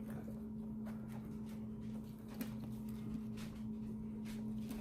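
A steady low hum with faint, scattered soft clicks and taps.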